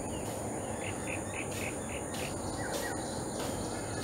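Outdoor background ambience: a steady high-pitched insect drone, with a quick run of short bird chirps about a second in and a couple more near the end.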